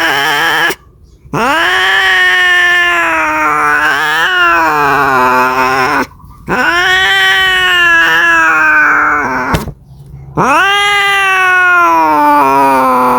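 Domestic cat caterwauling: after the tail of one call, three long drawn-out yowls, each rising and then sliding down in pitch, with short pauses between. This is the yowling of a cat calling for a mate.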